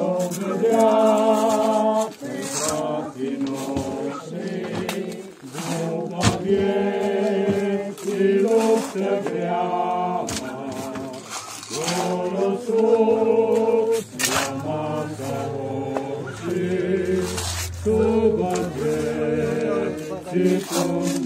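A group of mourners singing a funeral hymn together, in slow held notes.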